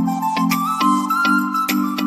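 Background outro music: a bright, upbeat tune with a steady beat of about two beats a second and a simple melody over repeating chords.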